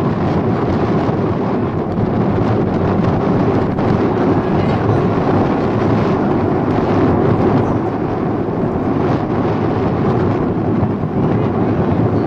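Wind buffeting the camera microphone, a steady loud rumble.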